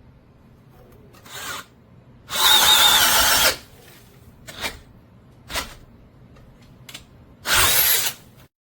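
Power drill driving an auger wood bit, run in short bursts: a brief one, a longer one of about a second, two quick blips, and a last burst under a second long.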